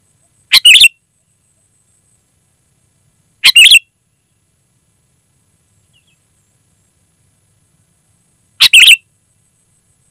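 Sooty-headed bulbul (kutilang) calling: three short, loud calls, each a quick run of a few notes, spaced about three and five seconds apart.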